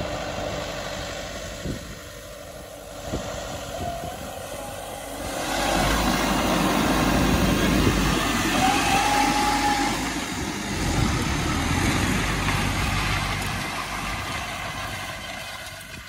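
Massey Ferguson 3710 tractor engine running under load as it pulls a disc harrow through dry ground, growing louder about five seconds in as it comes close and easing off near the end.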